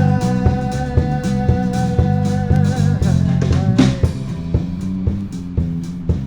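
Rock band playing a song: a drum kit keeps a steady beat under bass and guitar while a voice holds one long sung note for nearly four seconds, then moves on to the next word.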